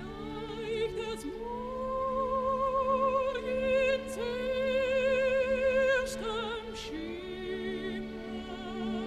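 An operatic soprano sings with an orchestra. She climbs to long, loud high notes held with a wide vibrato, then falls to a lower, softer line over sustained orchestral chords.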